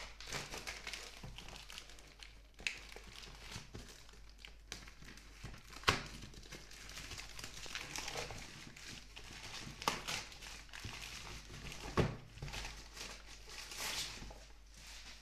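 Packaging being handled and opened: rustling and crinkling, with a few sharp clicks and knocks as the box and inner packing are moved.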